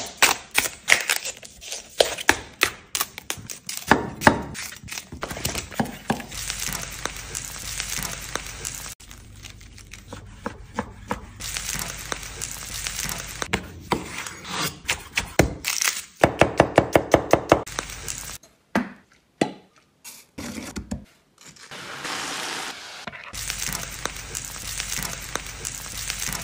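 Food-preparation sounds: a whole cauliflower's leaves and stalks being snapped and torn off in a string of sharp cracks, then a chef's knife chopping on a wooden cutting board in a quick run of about eight strikes. In the last few seconds a steady sizzle, typical of the cauliflower frying in a wok.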